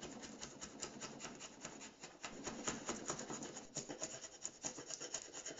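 Rapid rough scraping and rasping on birch plywood, many quick strokes a second, as the plies are worked apart to delaminate it.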